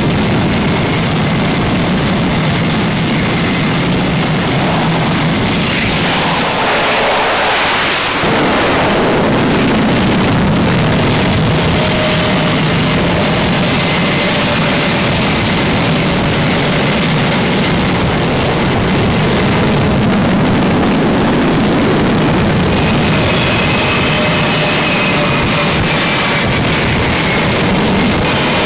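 F/A-18 jets' twin jet engines running loud on a carrier flight deck: a steady roar with a thin high turbine whine over it. The sound breaks and changes briefly about eight seconds in.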